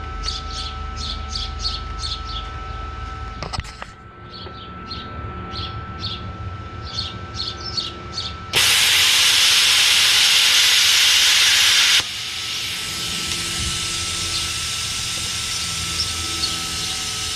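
Plasma cutter torch firing against sheet steel: a loud hiss starts suddenly about eight and a half seconds in and cuts off about three and a half seconds later, followed by a softer steady rush of air through the torch. The attempt barely cuts the metal.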